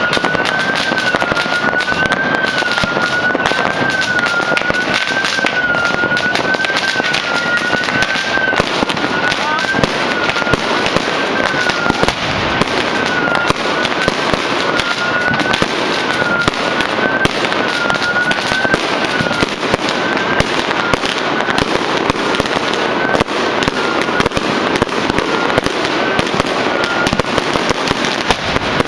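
Fireworks and firecrackers going off all over a city without a break, near and far: a dense, steady crackle full of bangs. A high tone warbles up and down about once a second through the din and grows patchy from about halfway on.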